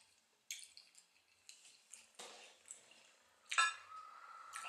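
Metal fork and plates clinking as a plate of food is moved and set down: a few sharp clicks, the loudest about three and a half seconds in, followed by a short ringing tone.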